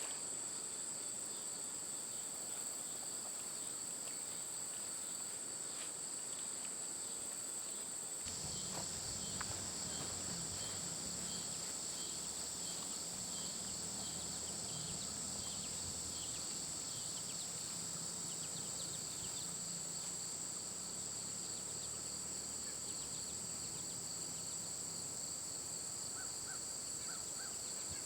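A chorus of insects, such as crickets, chirring: a steady high-pitched trill on two pitches. About eight seconds in, a low steady rumble joins it.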